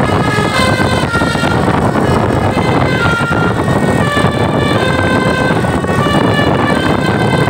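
Basuri telolet multi-tone air horn on a bus playing a quick melody of stepped notes, over steady loud background noise.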